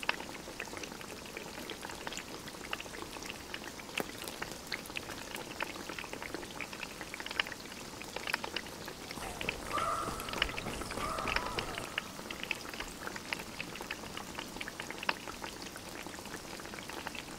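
Wood fire crackling in a small folding box stove, with irregular snaps and pops over a steady sizzle from the pot of food cooking on top. About ten seconds in, two short pitched squeaks sound over it.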